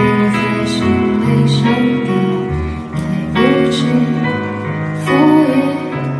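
Live band playing a slow, gentle song, with keyboard, guitars and a bass line sustaining long notes.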